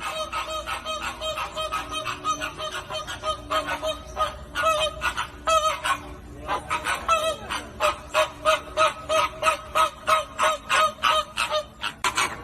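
A flock of flamingos honking, many calls overlapping in a rapid, steady chatter of several honks a second.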